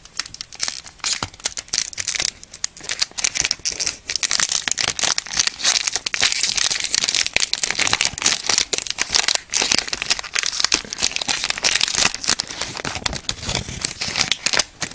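Foil booster-pack wrapper crinkling and crackling continuously as hands work it open.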